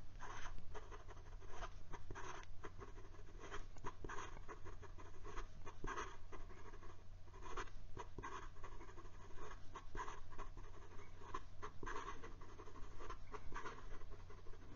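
Fine nib of a Jinhao Centennial fountain pen writing quickly across notebook paper, making an irregular run of light scratchy strokes. It is the audible feedback of a fine nib, which is not scratchy.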